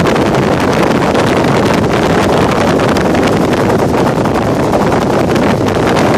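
Loud, steady helicopter cabin noise through an open side door: engine and rotor drone mixed with wind buffeting the microphone.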